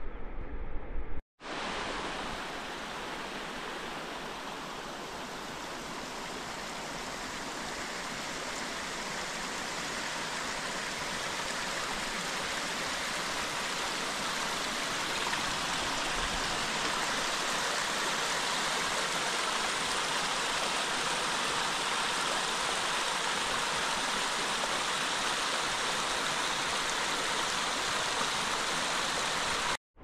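Steady rushing of a stream's flowing water, starting after a brief gap about a second in and growing slightly louder.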